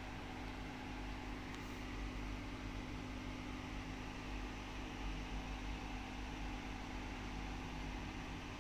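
Steady low mechanical hum with a constant hiss, like a machine or fan running.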